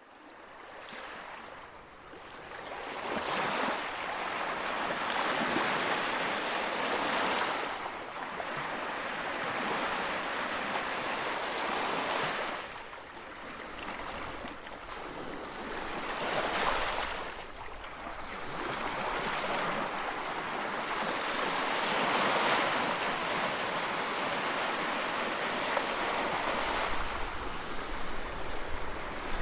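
Ocean surf breaking on a beach, the wash swelling and easing every few seconds.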